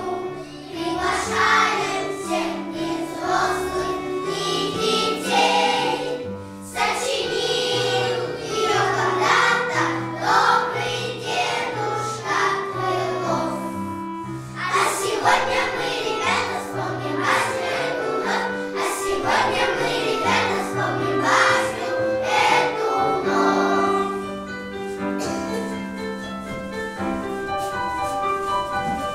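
A group of young children singing together over a recorded musical backing track.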